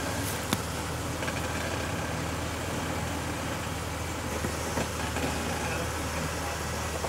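Jeep Wrangler engine running steadily at low revs as it crawls over boulders, with one sharp click about half a second in.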